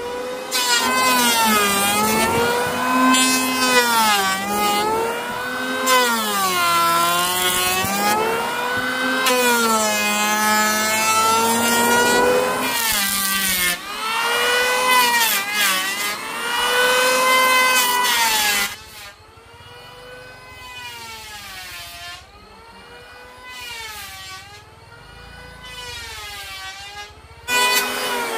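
Two-stroke chainsaw running at high revs, its pitch repeatedly sagging and recovering as it cuts into wood. It falls much quieter about two-thirds of the way through, then comes back loud near the end.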